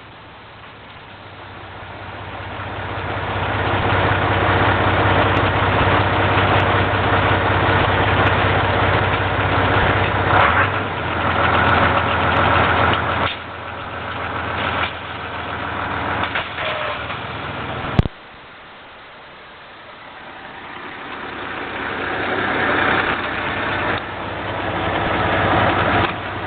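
Farm tractor engine running steadily while working hay, growing louder as it comes closer, then again after a sudden drop about 18 seconds in; the sound changes abruptly a few times.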